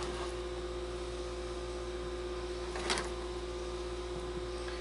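Steady electrical hum of a running appliance, with one light tap about three seconds in.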